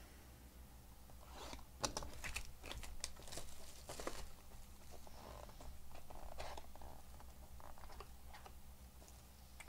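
Plastic shrink wrap being torn and crinkled off a sealed trading-card box, with scattered clicks and taps as the cardboard box is handled.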